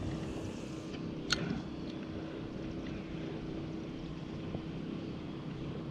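Low, steady wind and water noise around a small boat, with a faint steady hum underneath and one short sharp click a little over a second in.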